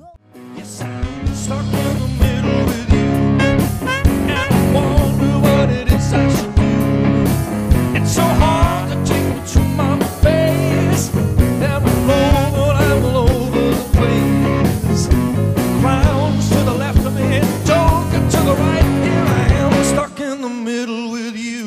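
A live band playing a song, with a male singer over drum kit, bass and electric guitar. It fades in at the start, and about twenty seconds in the drums and bass drop out, leaving a held chord.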